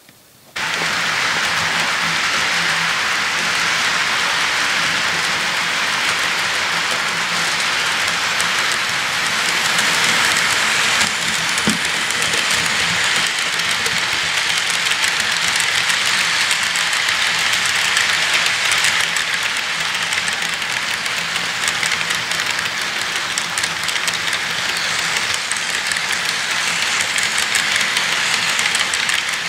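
HO scale model freight cars rolling past on the layout track: a steady, even rattle of small metal wheels on rail that starts suddenly about half a second in, with a faint low hum beneath it.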